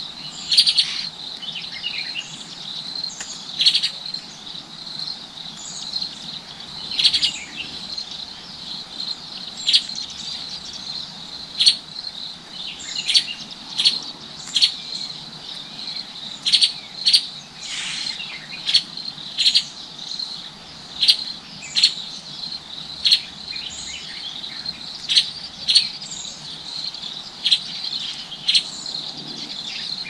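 A steady high-pitched insect trill with short, sharp bird chirps over it, about one or two a second at an uneven pace.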